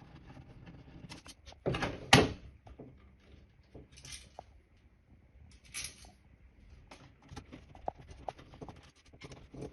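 Hands and a screwdriver working on a plastic wall socket: scattered clicks, knocks and short scrapes as the screws are undone and the old socket is pulled off the wall box and its cables freed, with the loudest clatter about two seconds in.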